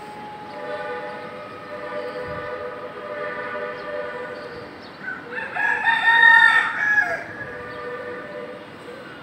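A rooster crows once, loud and about two seconds long, starting about five seconds in, over a steady background drone of several held tones.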